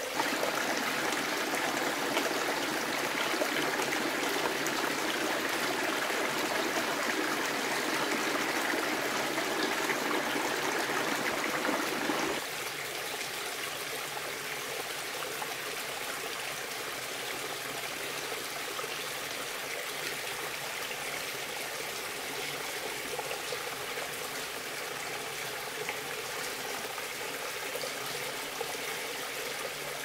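A forest stream running steadily, a continuous rush of water; it drops sharply to a quieter level about twelve seconds in.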